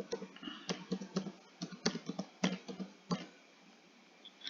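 Irregular clicking and tapping at a computer, a quick run of sharp clicks that stops a little after three seconds in.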